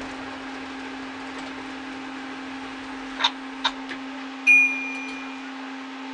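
Steady electric hum of a ride-on miniature train's drive as it rolls slowly. Two sharp clicks come about three seconds in. Just after them a single high beep, the loudest sound, starts sharply and fades over about a second.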